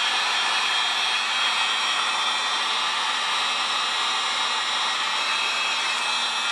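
Electric heat gun blowing steadily, a even whoosh of air with a faint low motor hum, as it shrinks heat-shrink tubing over crimped wire connectors.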